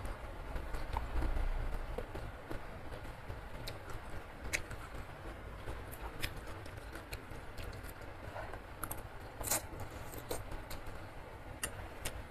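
Close-up eating sounds of instant noodle soup being slurped and chewed, with scattered short clicks of a metal fork and spoon against the bowl, over a steady hiss of heavy rain.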